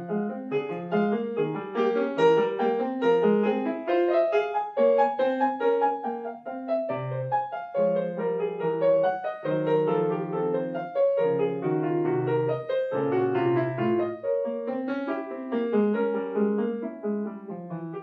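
Yamaha grand piano played solo: a busy stream of quick notes over a moving bass line, with longer held low notes sounding from about seven to fourteen seconds in.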